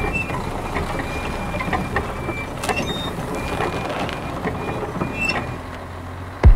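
Tank sound effect: a steady low engine rumble with scattered mechanical clicks and clanks as the model tank's turret turns. Right at the end, a sudden loud explosion blast cuts in.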